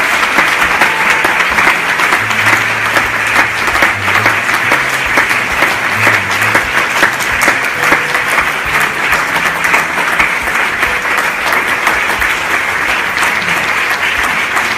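Audience and panel applauding, a steady dense clapping of many hands.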